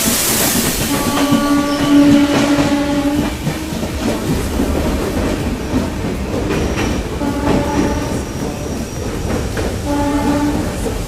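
Passenger train running along the track, wheels clicking over the rail joints, its horn sounding for about two seconds and again briefly near the end.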